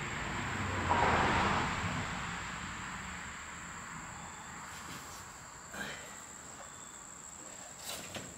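Steady high-pitched insect buzzing, with a broad rushing noise that swells about a second in and slowly fades over the next few seconds, and a few faint knocks near the end.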